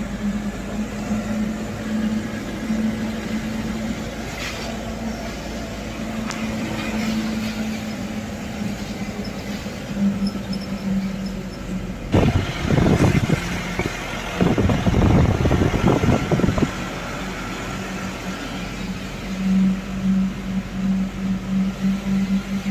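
A vehicle engine running with a steady, slightly pulsing hum, and a louder, rougher stretch of several seconds about halfway through.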